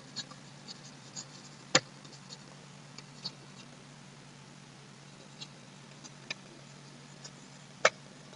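Faint, scattered clicks and taps of a stylus on a writing tablet as words are handwritten, with two sharper clicks, one just under two seconds in and one near the end, over a faint low hum.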